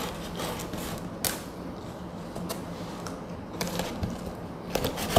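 Utility knife slicing clear packing tape on a cardboard box: short scraping and clicking strokes at irregular intervals.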